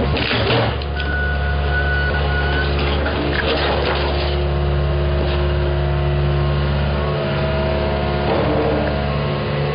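An engine running steadily with a constant low hum, with short rougher bursts of noise near the start, a few seconds in, and near the end.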